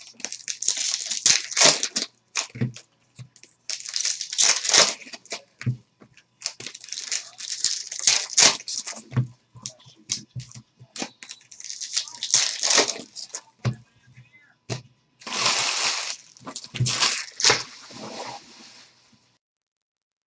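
Foil trading-card pack wrappers being torn open and crinkled in irregular bursts, with a few soft knocks as card stacks are set down on the table. The rustling stops about a second before the end.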